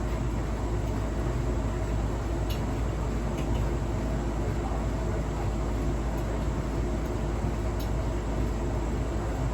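A Hotpoint household appliance running with a steady low hum and rumble, with a few faint clicks. The owner wonders whether its squeaking, scraping and clicking are a sign of a fault.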